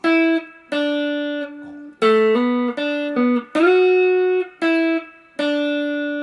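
Stratocaster-style electric guitar played with a pick through an amp: a single-note D major pentatonic phrase that imitates slide guitar, with short upward glides into some notes, ending on a note left ringing for the last second or so.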